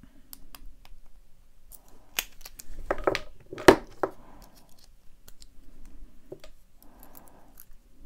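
Metal-on-metal clicks of a pick and tension wrench working a Master Lock Pro Series 6835 padlock. Around the middle comes a cluster of louder metallic clicks and clatter, loudest a single sharp clack, as the opened padlock is handled and set down on the table. Softer handling and picking follow as the next padlock is started.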